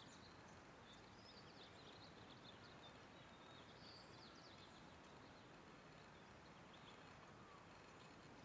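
Very faint outdoor ambience: a steady low hiss with small birds chirping faintly, mostly in the first half.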